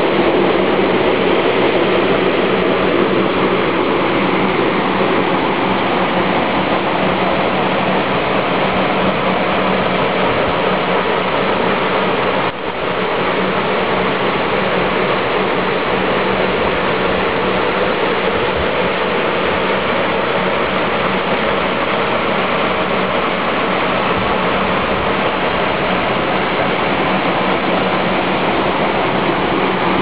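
Linarejos waterfall: a steady, loud rush of falling water, with a brief break about twelve seconds in.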